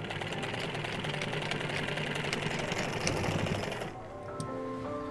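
Sewing machine stitching fabric, a fast steady run of needle strokes that stops abruptly about four seconds in. Background music with a simple melody follows.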